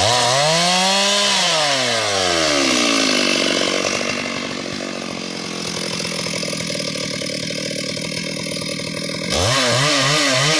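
Two-stroke chainsaw revving up and down, settling into a lower, steadier run about three seconds in, then revving hard again near the end.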